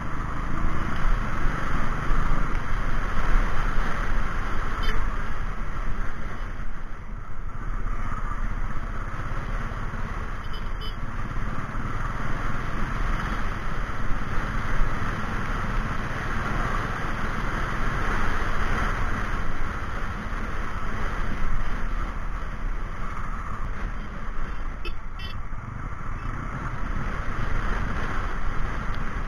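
A motor vehicle driving through town traffic: steady engine, road and wind noise with no break.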